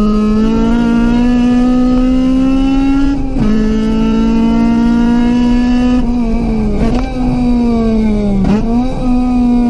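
Honda CRX's B16A1 1.6-litre DOHC VTEC four-cylinder running at high revs under hard driving. The pitch climbs, drops sharply about three seconds in as it changes gear, then climbs again. In the last few seconds the revs sag, with two short dips and recoveries.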